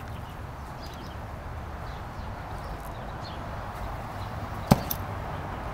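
A flint striker clicks once, sharp, near the end, while an oxyacetylene cutting torch is being lit, with a steady hiss underneath.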